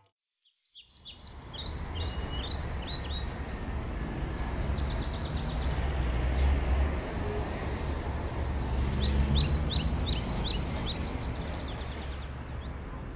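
Street traffic passing, a steady low rumble of cars and trucks, with small birds chirping in quick runs of short high notes in the first few seconds and again near the end.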